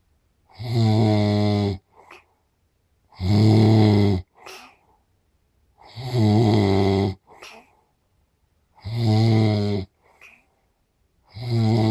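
A sleeping person snoring loudly in a steady rhythm: long, buzzing snores about every two and a half to three seconds, each followed by a short faint breath out. There are five snores, the last still going at the end.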